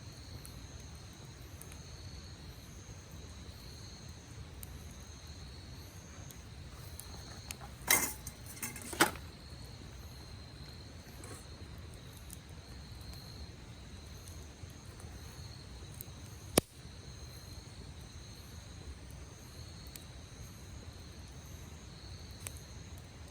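Wood campfire giving off a few sharp pops and crackles: two loud pops close together about a third of the way in and a single sharp snap past the middle. Underneath, insects chirp in a steady pulsing rhythm.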